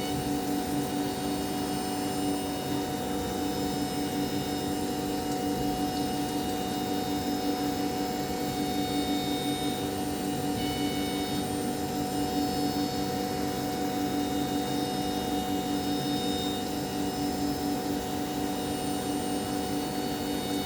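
Jewelery 350i CNC milling machine running steadily as it mills a watch case: a constant machine hum with several steady whining tones from the spindle and drives, a few higher tones coming and going.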